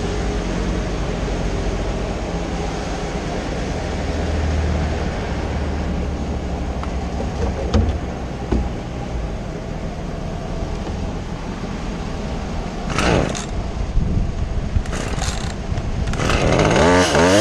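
A spider lift's engine runs steadily. About a second before the end, a Stihl chainsaw starts and is revved up and down.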